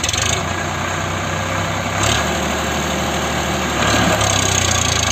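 Eicher 551 tractor's three-cylinder diesel engine running hard under load as its log-fitted rear wheels churn in deep mud to free the stuck tractor. It comes up sharply at the start and pulls louder again about two seconds in and near four seconds in.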